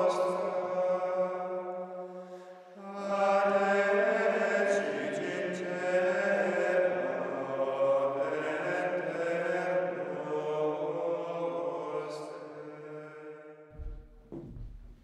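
Men's voices chanting plainsong in one line, in long held notes, with a short breath pause about two and a half seconds in. The chant fades out near the end, where a few light knocks follow.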